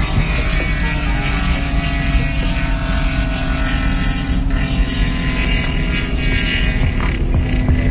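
Car engine droning steadily inside the cabin at highway cruising speed, with road noise; its pitch sinks slowly as the car eases off.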